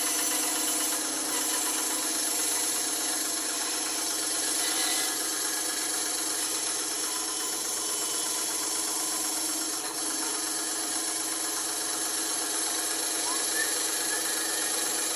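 Bandsaw running steadily, its blade cutting into a piece of wood.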